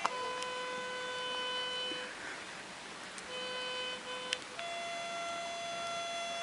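Slow music of long held notes, each sustained for one to two seconds before stepping to another pitch, with two short clicks, one at the start and one about four seconds in.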